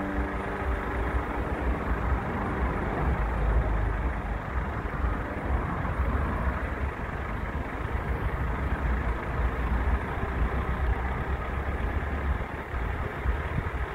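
Van engine running with a steady low rumble and road noise, heard from inside the cabin as it moves slowly in a traffic jam.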